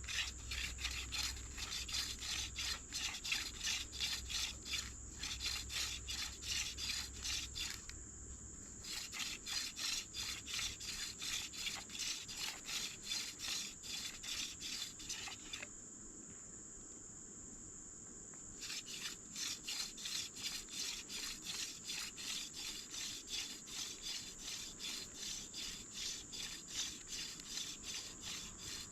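Hand drill fire-making: a dog fennel spindle spun back and forth between the palms in a hickory fireboard, wood rubbing on wood in quick rhythmic strokes under light 'floating' pressure, the warm-up stage before the drill is driven down to raise smoke. The rubbing stops for about a second some eight seconds in and for about three seconds near the middle. A steady high insect trill runs underneath.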